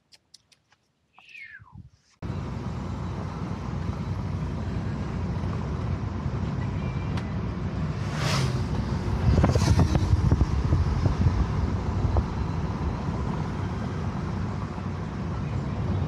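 Camper van driving on a mountain road: steady road and engine noise that starts abruptly about two seconds in. It grows louder for a couple of seconds around the middle as a motorcycle passes alongside.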